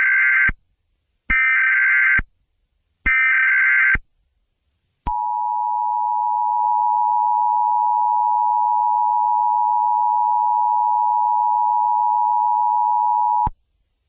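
Emergency Alert System tones: three short bursts of SAME header data, the first already under way, followed after a short gap by the steady two-tone EAS attention signal, held for about eight seconds before it cuts off.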